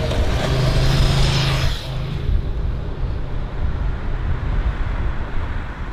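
Road traffic on a multi-lane city street: a vehicle passes close by in the first two seconds, its engine and tyre noise loudest, then the traffic settles into a steady rumble.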